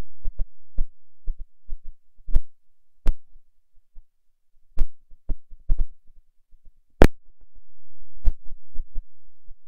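Broken audio from a failed recording: irregular clicks and thumps, the loudest about seven seconds in, over a low hum that comes and goes.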